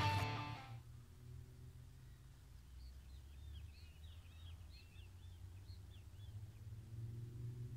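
Guitar music fading out in the first second, then a quiet outdoor background with a low steady rumble and birds chirping faintly several times between about two and five seconds in.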